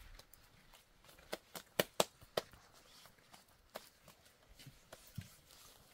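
Flatbread dough being slapped and flipped between bare palms to stretch it thin. There is a quick run of about five sharp slaps between one and two and a half seconds in, then two more spaced-out slaps later.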